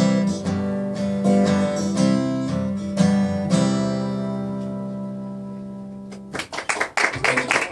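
Acoustic guitar strumming the closing phrase of a slow blues, the last chord ringing out and fading over a few seconds. Applause breaks out near the end.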